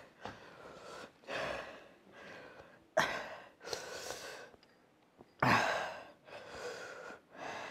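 A man breathing hard through his mouth in a string of gasps and heavy, hissing breaths, two of them sudden and loud, as he reacts to the burn of Carolina Reaper chili wings.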